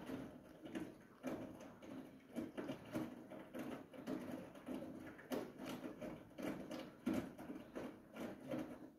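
Siemens iQ700 front-loading washing machine drum turning, with irregular knocking and clatter a few times a second as the laundry tumbles. It stops abruptly near the end.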